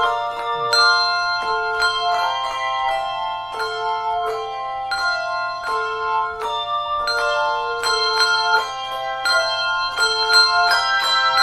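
A handbell choir playing a tune: tuned handbells struck one after another, each note ringing on and overlapping the next, with a low bell coming back about once a second.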